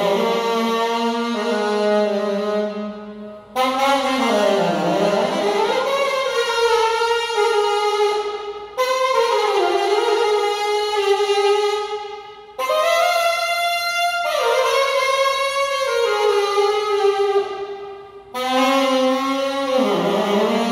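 Alto saxophone played solo in slow phrases of long held notes with some sliding pitch, broken by short pauses for breath about every four to five seconds.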